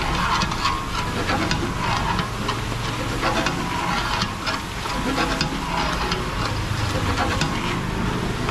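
Chips frying in hot oil, a steady sizzle broken by irregular sharp clicks and clatter, over a low rumble.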